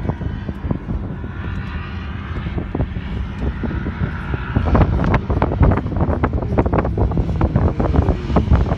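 Off-road dune vehicle engines running and revving across the sand, getting louder about halfway through.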